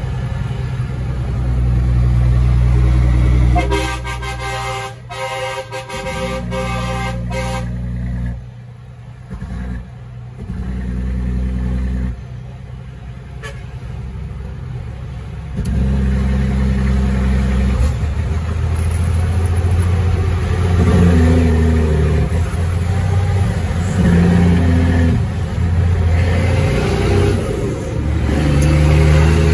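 Caterpillar 3306 diesel engine of a heavy truck running, its speed and loudness rising and falling in steps. A horn sounds a few seconds in.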